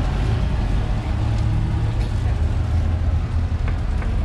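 A motor vehicle's engine running close by: a steady low rumble, with a few faint clicks over it.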